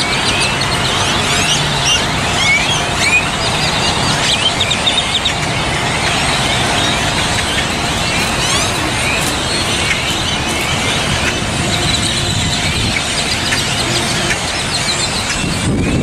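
A large roosting flock of birds calling all at once: a dense, continuous chatter of short, squeaky chirps and whistles.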